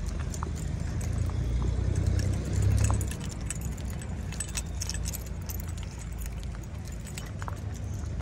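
A bunch of keys jangling in a hand, with small metallic clinks throughout, over a steady low rumble that swells about one to three seconds in.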